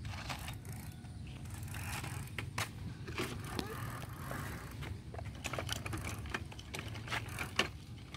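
Bicycle riding on a path: a steady low rumble with irregular clicks and rattles from the bike, and faint distant voices about three seconds in.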